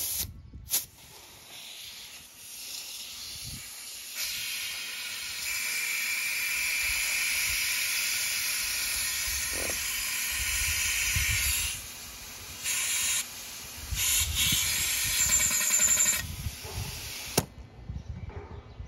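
Compressed air hissing through a compressor-driven venturi vacuum tool on a car's cooling system, drawing a vacuum to test whether the system holds before it is refilled. The hiss grows louder a few seconds in, drops out briefly a couple of times past the middle, and cuts off sharply near the end.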